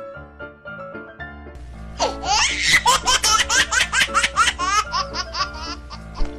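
Light background music with steady notes, then from about two seconds in a loud run of rapid, high-pitched laughter over it, many short rising bursts in quick succession.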